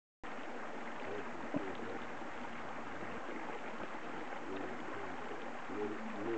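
Creek water rushing steadily, with a single sharp knock about a second and a half in.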